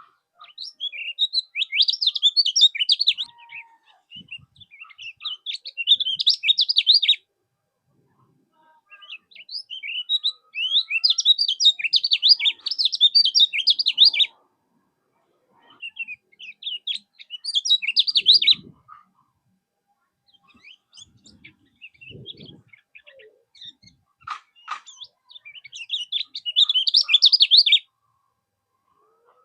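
Kecial kuning, a white-eye, singing long, fast twittering phrases of rapid high chirps, in several bursts separated by short pauses.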